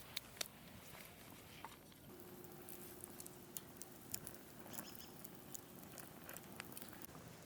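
Small wood campfire crackling faintly, with scattered sharp pops. A faint steady hum joins about two seconds in and stops just before the end.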